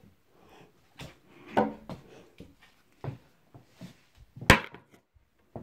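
Scattered knocks and bumps on wood in a small room, with one sharp loud knock about four and a half seconds in.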